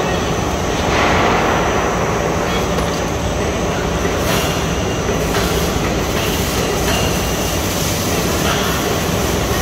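An ABA plastic film blowing line running: a steady, loud machinery din with a low hum and a faint high whine, as the film winds onto the winder.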